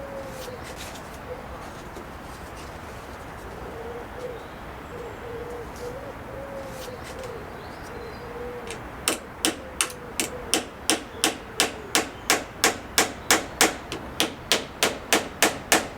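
A hammer driving nails into wooden boards: a steady run of blows, about three a second, that starts about nine seconds in and keeps going. Before the hammering a pigeon coos.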